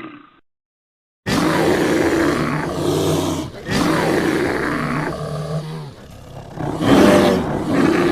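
Bear roaring: the tail of one roar fades out at the start, and after a short dead silence a new roar starts abruptly about a second in. It goes on in several long, rough breaths with short dips between them and is loudest near the end.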